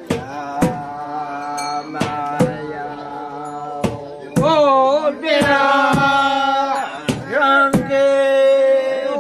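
Festival chanting in long held notes that glide up and down, rising in strength about halfway through, with sharp knocks at irregular intervals.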